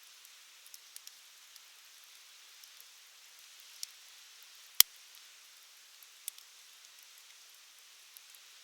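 Wood fire crackling: a faint hiss with scattered small pops, and one sharp, loud pop about five seconds in.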